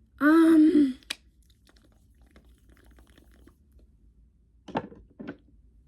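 A woman's voice: a loud, brief held vocal note close to the microphone about a second long, a click just after it, and two short vocal sounds near the end.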